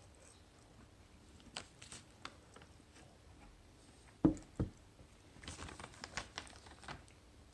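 Handling of a cardboard food box: a few light taps, two sharp thumps about four seconds in, then a short run of crinkling and clicking.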